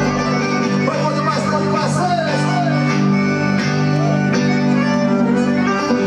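Live forró band playing: accordion melody over electric guitar and keyboard, with a steady beat.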